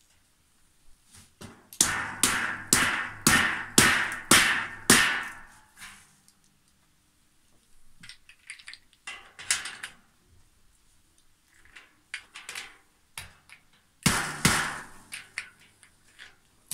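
Sharp knocks on the steel-tube frame of a flat-pack metal trolley as a fitting is driven onto a leg: a quick run of about seven, about two a second, each with a short ring, then a few lighter knocks and another loud pair later on.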